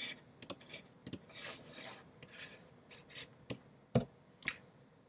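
Quiet, irregular clicks of a computer keyboard and mouse, about a dozen spread out with the loudest about four seconds in, and soft rubbing noise between them.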